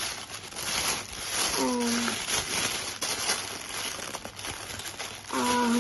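Packaging crinkling and rustling as the TV remote's small taped box is opened by hand, with a short sharp tear right at the start.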